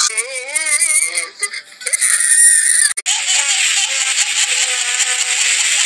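Music with a warbling, singing-like voice. After a short break about halfway through, a steady hiss sits under a held, wavering tone.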